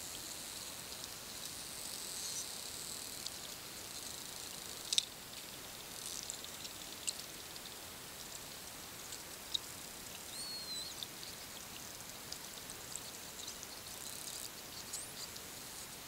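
Bottlenose dolphins heard underwater: scattered sharp echolocation clicks, the loudest about five seconds in, over a steady hiss of the sea, with one short whistle that rises then falls about ten seconds in.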